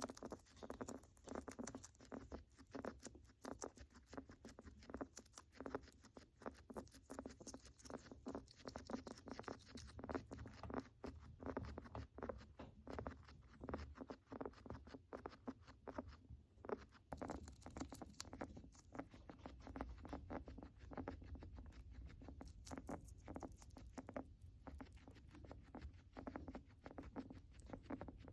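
Faint crackling, rattling breathing of a guinea pig: a rapid, irregular run of small clicks that keeps on without a break. It is a sign of illness, most commonly an upper respiratory infection or pneumonia.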